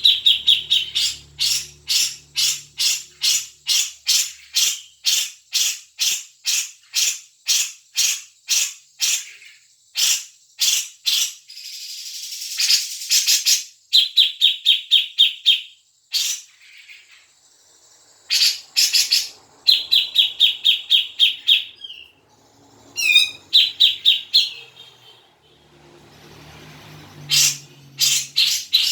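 Cucak jenggot bulbul calling: a fast series of sharp, ringing notes about two a second, a harsh rasping call a little before halfway, then bursts of rapid chattering trills broken by short pauses.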